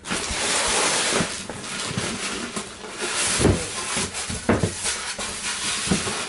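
Rustling and scraping of cardboard, foam and plastic packaging as headlight housings are pulled out of their box, with a few dull knocks about halfway through and near the end.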